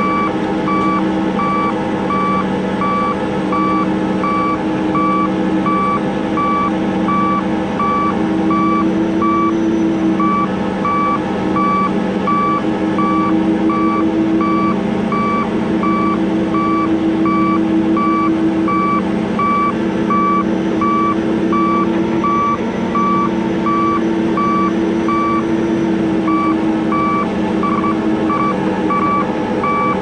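Heavy wrecker's diesel engine running steadily under load while its winch pulls a stuck cotton baler out of the mud, with a backup alarm beeping in a steady repeating pattern.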